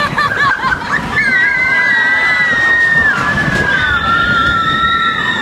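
Roller coaster train running with a rushing rumble, and a long high-pitched squeal from about a second in that holds for several seconds.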